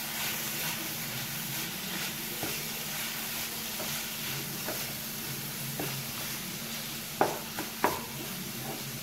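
Vegetable momo filling sizzling in a frying pan while it is stirred, a steady hiss with scraping. Two sharp knocks of the stirring utensil against the pan about seven and eight seconds in.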